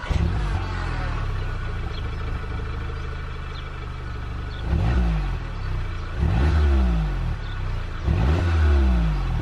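Volkswagen Scirocco engine on its stock exhaust, heard at the twin tailpipes: it idles steadily, then is revved three times in the second half, each rev rising and falling in pitch.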